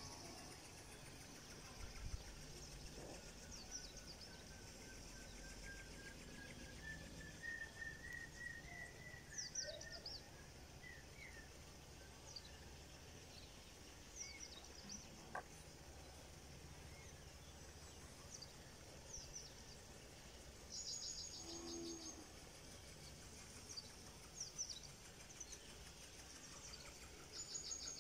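Faint outdoor ambience with birds calling: short high chirps every few seconds, and one longer whistled call that slowly rises in pitch for several seconds a few seconds in, over a faint low rumble.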